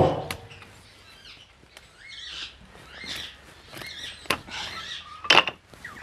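A sharp click with a short ring at the start, a few faint bird chirps, then sharp wooden knocks as pine beehive frame end bars are handled, the loudest about five seconds in.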